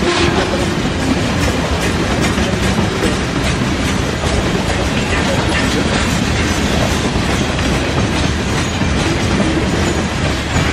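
Freight train of covered grain hopper cars rolling past close by: steel wheels running over the rails, a steady loud rolling noise with no break.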